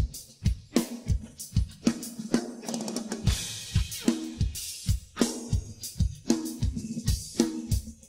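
Drum kit played on its own in a steady groove: regular bass drum strokes, a snare with a ringing tone, and hi-hat and cymbals on top. There is a heavier cymbal wash about three seconds in.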